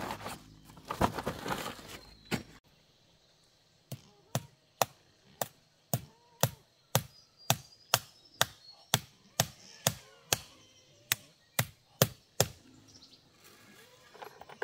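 Steady chopping with a blade, sharp strikes at an even pace of about two a second, starting about four seconds in and stopping a couple of seconds before the end. It is preceded by a burst of rustling and knocking.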